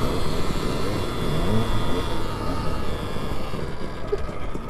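Alta Redshift MXR electric dirt bike riding along a dirt trail: wind rushing over the bike-mounted microphone and tyres on dirt, with a whine that rises in pitch about a second in as the bike picks up speed.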